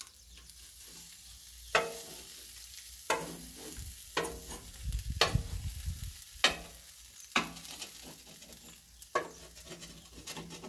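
A rolling pizza cutter cutting through a crisp tortilla-crust pizza and scraping on a steel flat-top griddle, giving about seven sharp clacks at irregular intervals over a faint steady sizzle from the still-hot griddle.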